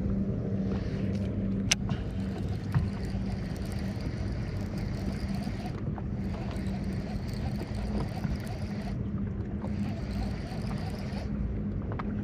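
Boat motor running with a steady hum, with wind and water noise around it. A sharp click comes a little under two seconds in.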